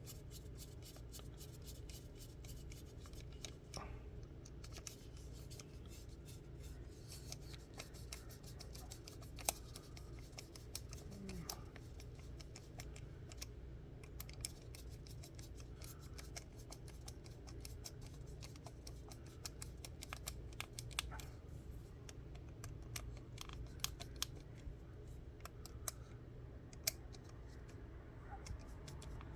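Many small, quick clicks and ticks from the parts of a diaphragm pump being handled and fitted back together, over a steady low hum.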